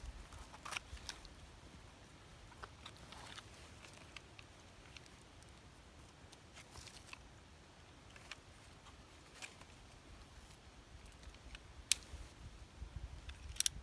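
A knife cutting a young masutake bracket fungus from the base of a tree: scattered soft crunches and rustles in the first few seconds, then faint handling noises and a couple of sharp clicks near the end.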